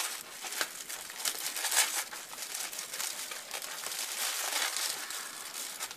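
Honeycomb paper (Magnolia Doo-Bee-Pops) crinkling and rustling as it is handled and pressed together by hand: continuous crinkling with small crackles.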